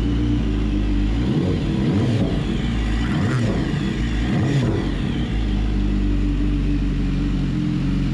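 BMW S1000RR inline-four engine, freshly swapped in, running while it warms up. Its revs rise and fall a few times in the first half, then it settles to a steady idle.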